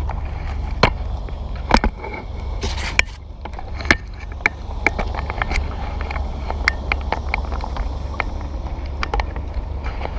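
Airsoft guns firing scattered single shots, with BBs striking nearby: sharp clicks and pops at irregular intervals over a steady low rumble.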